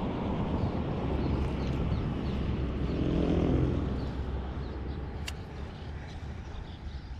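A low steady rumble with the hum of a passing engine that swells about three to four seconds in and then fades away; a single sharp click about five seconds in.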